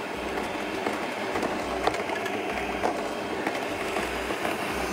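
Stand mixer's motor running steadily as it works a soft, sticky dough, with a low drone and faint scattered ticks of the spatula against the steel bowl.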